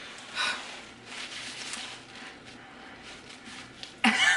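Hissing, breathy mouth sounds of a person whose mouth is burning from hot wings, then a short loud vocal outburst near the end.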